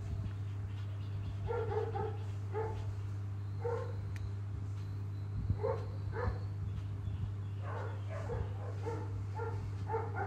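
A dog barking repeatedly in the background: about a dozen short barks, irregularly spaced and some in quick pairs, over a steady low hum.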